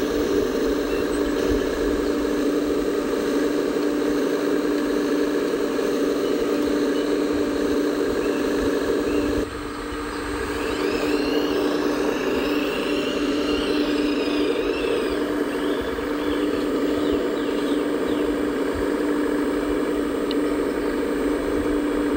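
Steady hum of a radio-controlled model Liebherr 970 SME excavator's hydraulic pump running as it digs and loads, one level tone that carries on through a brief drop in volume about nine seconds in. A few high chirps come and go shortly after the drop.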